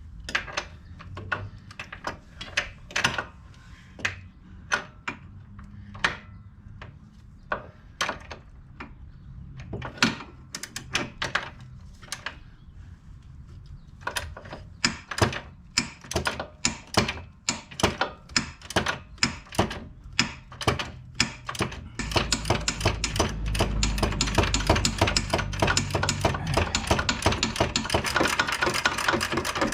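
A 3/8-inch drive ratchet with a 22 mm socket clicking as it is worked back and forth, backing off a prevailing-torque (oval) lock nut. The clicks come singly and scattered at first, fall into a quicker regular run about halfway through, and from about two-thirds of the way in become a dense, fast clicking as the nut turns more freely.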